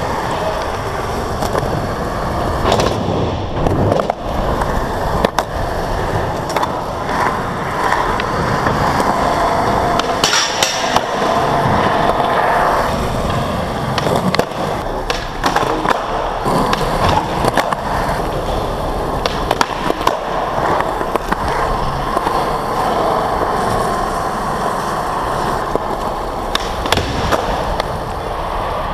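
Skateboard wheels rolling steadily on smooth concrete, broken by repeated sharp clacks of the board's tail popping and the deck landing.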